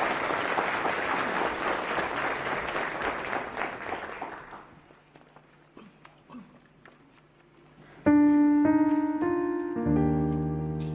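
Audience applause fading out over the first four seconds or so, then a few seconds of near quiet with small scattered room noises. About eight seconds in, a piano starts playing, a few separate notes followed by fuller chords.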